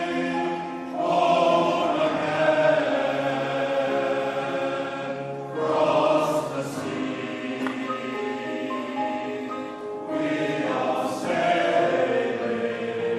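Male voice choir singing a slow song in close harmony, held chords broken by breaths between phrases every four to five seconds.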